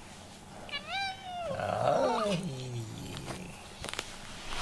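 A domestic cat giving one long drawn-out meow about a second in, its pitch sliding down low at the end; a few faint taps follow.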